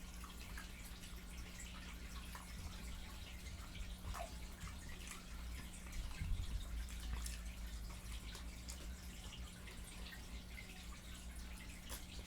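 Chewing and wet lip smacking while eating fried chicken: a scatter of small moist clicks, over a steady low hum.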